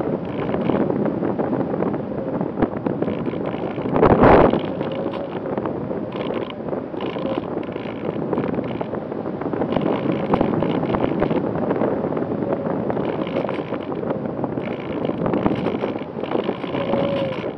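Airflow rushing over the onboard camera's microphone as an Easy Star 2 foam RC plane flies, with the faint steady whine of its pusher electric motor. A louder gust of wind noise comes about four seconds in.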